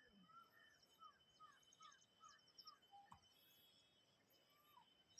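Faint birdsong: a run of short repeated chirps in the first half, with higher twittering notes, over a steady thin high-pitched tone. A single soft tap comes about three seconds in.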